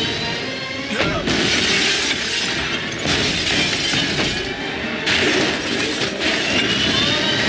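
Film sound effects of a high-rise building collapsing: crashing, breaking debris and shattering glass over loud music, with several sudden crashes, the first about a second in.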